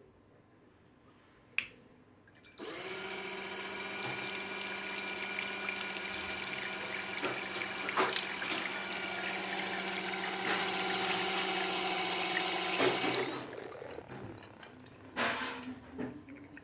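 Fire alarm sounding one continuous, loud, high-pitched electronic tone with a low hum under it. It starts suddenly after a small click, holds steady for about ten seconds, and cuts off.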